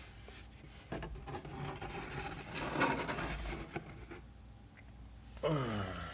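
Close handling noise: rustling and scraping with small clicks for a few seconds. About five seconds in comes a short vocal groan from a man, falling in pitch.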